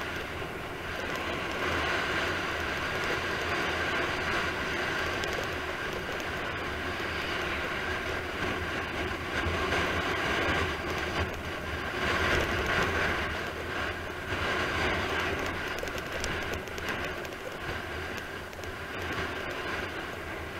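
Wind rushing over an action camera's microphone and wheels rumbling on asphalt during a fast downhill descent, a steady noise that swells and eases a little.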